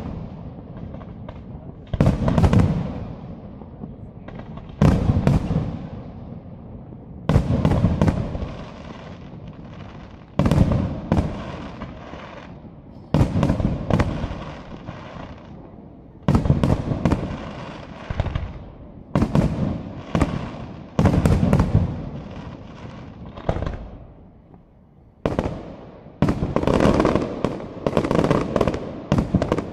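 Aerial fireworks display: shells bursting with a loud bang every two to three seconds, each bang trailing off over a second or two. Near the end the bangs come thick and fast in a rapid, crackling run.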